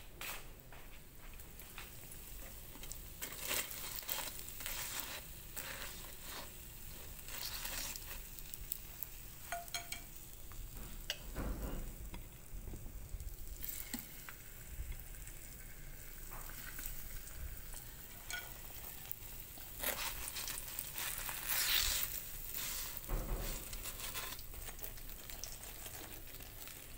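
Oil sizzling steadily in an electric skillet as pieces of food fry, with scattered sharp crackles and pops.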